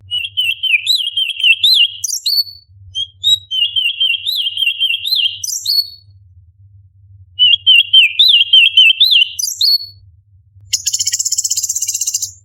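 Orange-bellied leafbird singing: three quick warbling phrases, each tipped with high thin whistled notes, separated by short pauses. Near the end the song turns to a harsh, fast, evenly pulsed rattling chatter.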